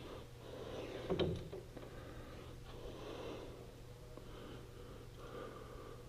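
A person breathing through the nose close to the microphone, with a louder, sharper exhale about a second in, over a steady low hum. There is a faint click near the end.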